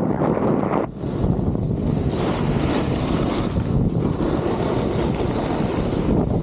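Wind rumbling on the camera's microphone while a snowboard slides over the snow, with the hiss of the board on the snow coming up strongly about a second in and continuing.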